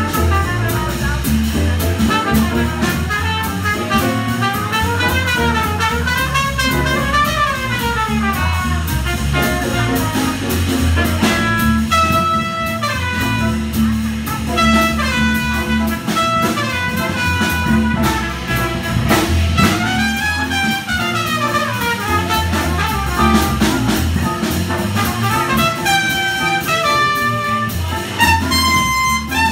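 Live small jazz group playing a swing number: trumpet leading with quick runs of notes that rise and fall, over drum kit, bass and piano.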